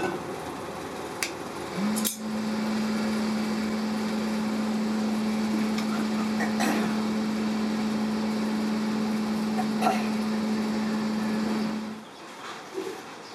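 A steady machine hum starts with a short rise in pitch about two seconds in and cuts off near the end, over constant workshop noise with a few sharp knocks.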